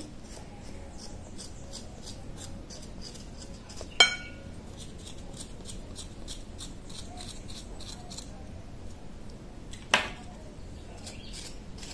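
Small kitchen knife scraping the skin off a fresh ginger root, short scratchy strokes about three a second, with two sharp clinks, one about four seconds in and one near the end.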